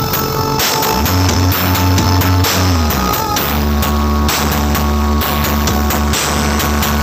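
Loud music played through a carnival truck's tall stack of loudspeaker cabinets, with deep bass the loudest part. About a second in, the bass line slides up and down in pitch for a couple of seconds before settling back into a steady pounding low end.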